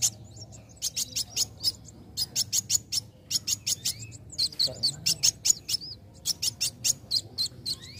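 Young male copper-throated sunbird (kolibri wulung) singing vigorously: rapid runs of sharp, high chirps in quick clusters, broken by short pauses.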